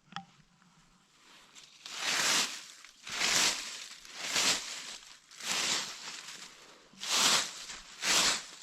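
Dry leaf litter rustled in six separate swishes about a second apart, starting about two seconds in: strokes in leaves close to the microphone, like the leaf scratching used to imitate a feeding turkey.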